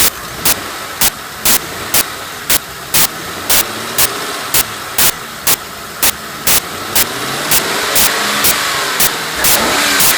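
Lincoln Town Car's 4.6 L V8 running, with a sharp tick about twice a second over the engine sound; the owner asks whether a lifter is making it. The engine speeds up briefly from about seven seconds in while the ticks keep the same pace.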